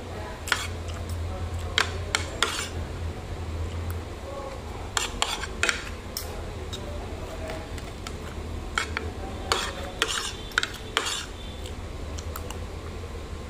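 Metal spoon and fork clinking and scraping against a plate while eating rice, in sharp irregular clicks over a steady low hum.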